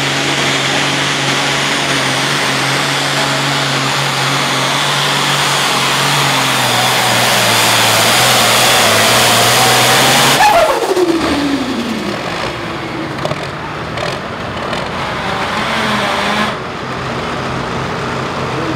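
International Hot Farm pulling tractor's engine running hard under load as it drags the weight-transfer sled, its note sagging a little as the sled bogs it down. About ten seconds in, the throttle comes off at the end of the pull and a falling whine winds down. A quieter low running sound follows.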